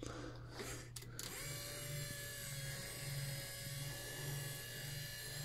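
Refurbished 1974 VW Beetle wiper motor running on the bench and driving the wiper linkage, a faint steady electric hum. A little over a second in, a higher whine joins and a low pulse starts, about two a second, as the mechanism cycles.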